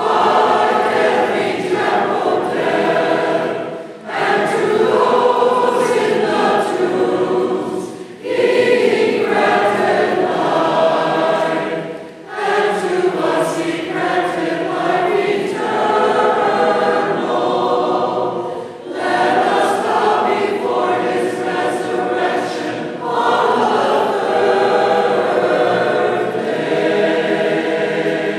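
Byzantine Catholic church choir singing unaccompanied, in phrases of about four seconds with brief breaks between them.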